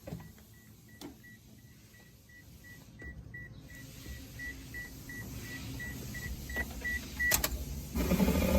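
A vehicle's electronic warning buzzer beeping rapidly at a steady pitch, about three beeps a second, over a low rumble that slowly grows. It stops after about seven seconds with a click, and a much louder mechanical running sound with a rising whine starts near the end.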